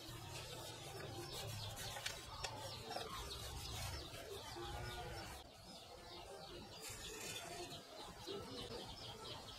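Cloth rubbing and handling noise on the plastic casing of a digital video tape rewinder as it is wiped clean, with a short aerosol spray hiss about seven seconds in. Birds call faintly in the background.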